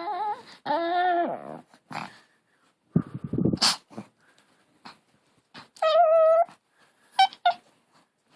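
Long-haired Chihuahua puppy vocalizing: two wavering, whiny growl-howls near the start, a rough noisy sound about three seconds in, a higher whine around six seconds, then two short yips near the end.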